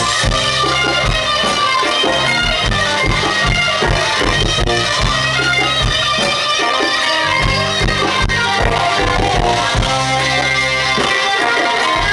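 Live band playing instrumental Malian guitar music: fast electric guitar lead lines over bass guitar and a drum kit, loud through a festival PA.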